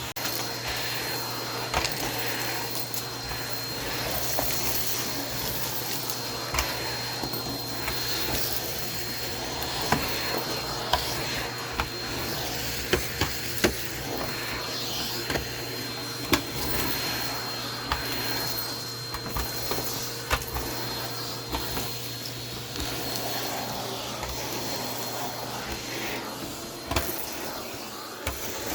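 Vacuum cleaner running steadily while picking up spilled shortbread cookie crumbs, with frequent sharp clicks as crumbs rattle up into the nozzle.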